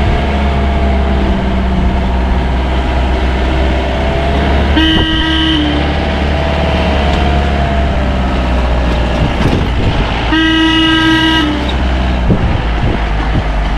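Off-road jeep engine running steadily under load, with a vehicle horn sounded twice, about a second each time, once near the middle and again about five seconds later.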